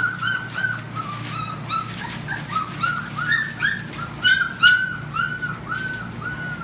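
Young puppies whining: a run of short, high-pitched cries, about three a second, loudest just past the middle.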